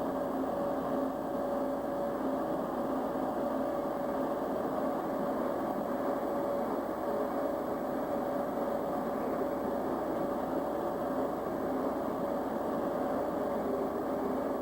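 Machinery running steadily: an even whirring noise with a constant low hum and a second, higher steady tone, unchanging throughout.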